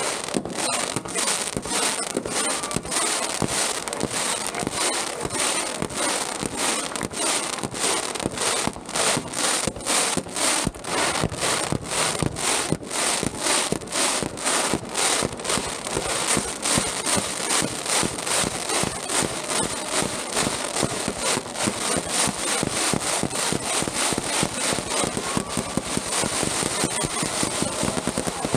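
Fireworks display going off in a dense, unbroken barrage: sharp bangs and crackling, several reports a second, with a steady high hiss over them.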